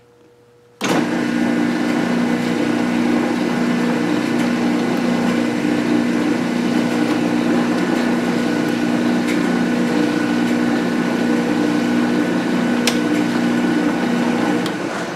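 Metal lathe switched on about a second in, its motor and gear train running with a steady hum at a slow spindle speed set for thread cutting; it winds down near the end.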